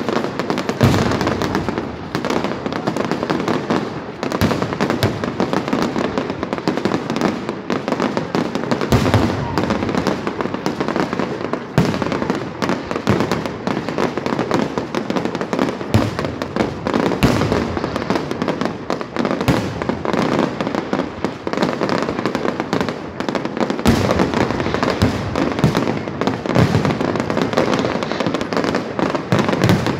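Aerial fireworks display: a continuous barrage of shell bursts and crackling, with heavier booms every few seconds.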